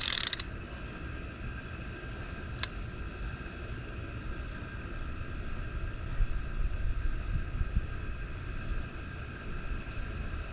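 Wind buffeting the microphone, an uneven low rumble, with a faint steady high whine behind it and a single sharp click about two and a half seconds in.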